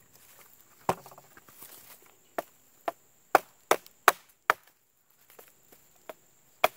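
Sharp wooden knocks as a tiny Victorinox Classic pocketknife blade is struck into a stick, chopping pieces out of it to cut a notch. About eight separate strikes: one just under a second in, a quick run of six about half a second apart between two and a half and four and a half seconds, and two more near the end.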